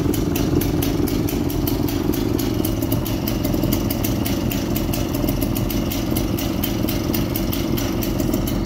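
Vintage Stihl 090G two-man chainsaw's single-cylinder two-stroke engine idling steadily, with no revving.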